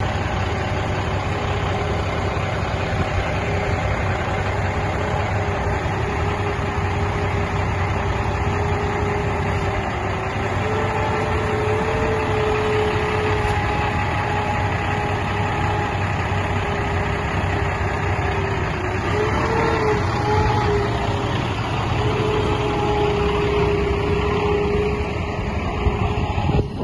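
A 15.0-litre inline-six diesel engine in a semi tractor idling steadily.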